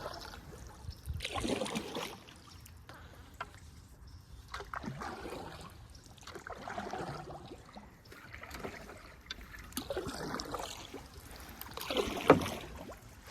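Canoe paddle strokes swishing through the water, one stroke every two to three seconds, with water trickling off the blade. A sharp knock sounds near the end.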